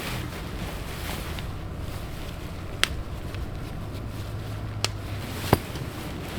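Steady low rumble, like wind on the microphone, with three sharp clicks or taps: one about three seconds in, one near five seconds and one soon after.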